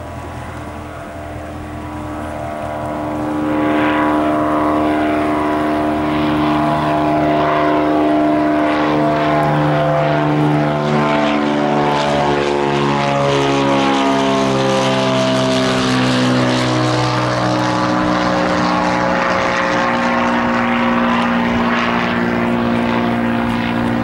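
Cirrus SR22 single-engine propeller plane at takeoff power, its six-cylinder piston engine and propeller droning louder about three seconds in as it climbs toward and over the listener. The pitch falls as the plane passes overhead, then holds lower as it flies away.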